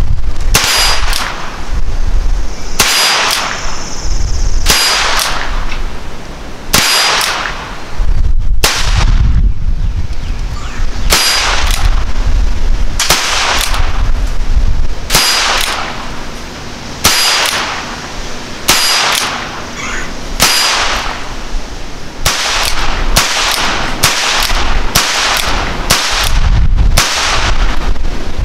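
Ruger Super Wrangler single-action .22 revolver firing a long string of shots, each with a short ringing echo. The shots come about one every two seconds at first and quicker, well under a second apart, in the last several seconds.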